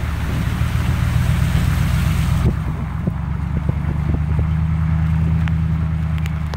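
A car driving on wet road, heard from inside: a steady low engine and road drone under a loud hiss that drops away suddenly about two and a half seconds in, with a few faint clicks after.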